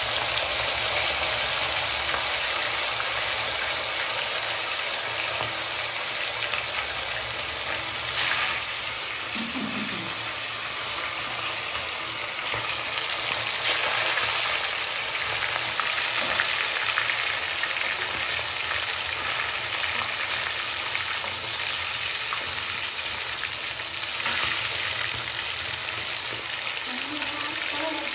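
Battered pieces deep-frying in hot oil in an iron kadai: a steady, dense sizzle and crackle of bubbling oil, with a few louder pops now and then.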